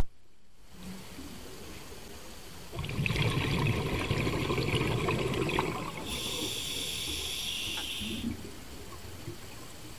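A diver breathing through a scuba regulator underwater: a rush of exhaled bubbles about three seconds in, then a hissing inhalation through the demand valve. A brief sharp click at the very start.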